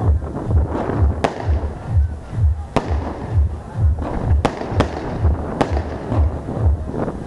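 Fireworks going off in a display: about five sharp bangs at uneven intervals, two of them close together in the middle. They sound over music with a steady thumping bass beat.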